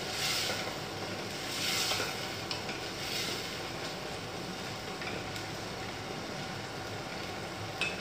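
A spoon stirring ful medames with onions and tomato cooking in oil in a stainless steel pot, over a steady sizzle. There are a few scraping strokes in the first few seconds and a sharp knock near the end.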